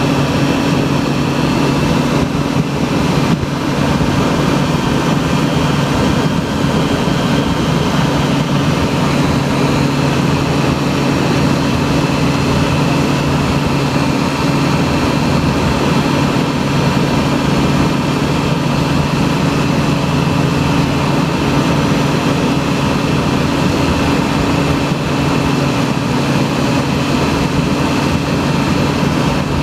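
Small ultralight aircraft engine and propeller droning steadily at constant power in low, slow flight.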